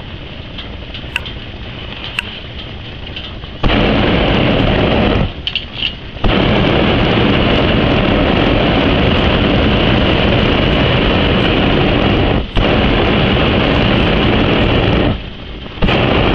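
Hot-air balloon's propane burner firing overhead in long blasts, a loud steady roar that switches on and off sharply. The first short blast comes a few seconds in, then a long one is broken only by a brief dip, and another short blast comes near the end. Before the first blast there is only a quieter hiss with a few clicks.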